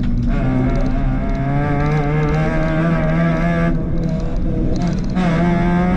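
Rally car engine running hard under load, heard from inside the cabin, its pitch climbing slowly, with the note dipping briefly twice about four and five seconds in.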